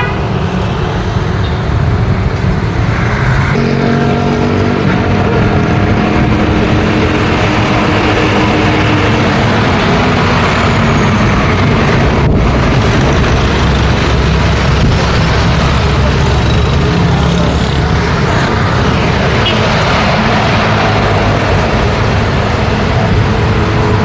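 Busy street traffic: motorbike and car engines running and passing, with a heavy flatbed truck rumbling past around the middle.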